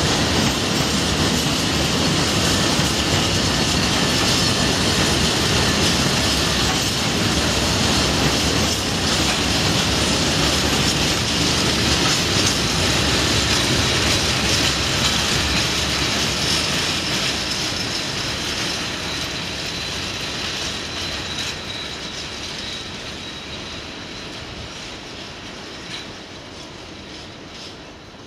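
Freight train's covered bogie wagons rolling past with a steady rumble of wheels on rail. A faint high wheel squeal rises above it through the middle, and the sound fades away over the last third as the end of the train draws off.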